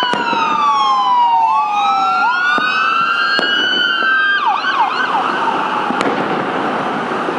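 Two or more emergency vehicle sirens wailing in long rising and falling sweeps, switching to a fast yelp about four and a half seconds in. A few sharp firework bangs go off, about four in all.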